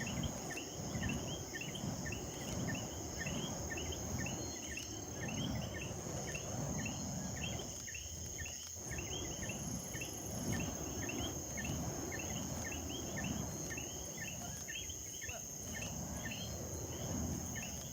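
Night insects chirping about three times a second over a steady high buzz, with a rhythmic low whooshing beneath, fitting the flaming wicks of a fire hoop swinging round.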